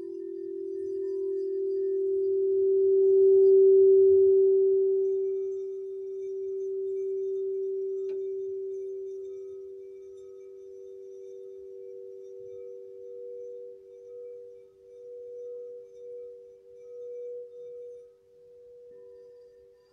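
Singing bowls ringing. A steady low tone swells and fades, then after a light tap about eight seconds in, a second, higher bowl joins and rings with a slow wavering pulse.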